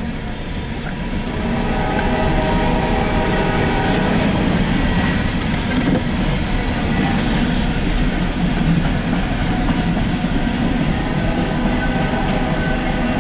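Empty coal cars of a CSX freight train rolling past, the steady rumble of steel wheels on the rails, growing louder about a second and a half in.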